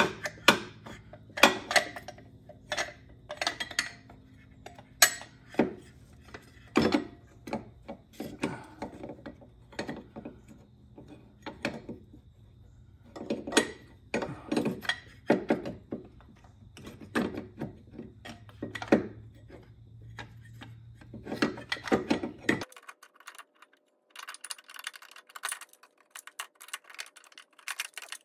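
Irregular metallic knocks and clunks as the unbolted but stuck water pump on a Chrysler 3.8 L V6 is wiggled by hand against the engine and frame. The background hum cuts off abruptly late on, and fast, light clicking follows.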